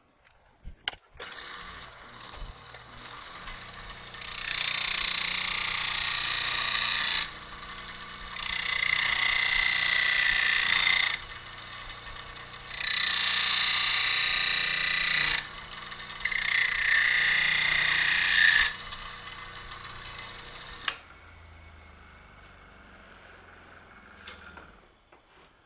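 Electric motor spinning a Scotch-Brite deburring wheel, with four passes of a few seconds each where a piece of metal is pressed to the wheel and it gives a loud scrubbing hiss. The motor is switched off near the end and runs down quietly.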